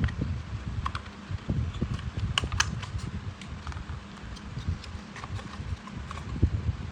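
Irregular light clicks and taps, several in quick succession about two and a half seconds in, over a steady low rumble.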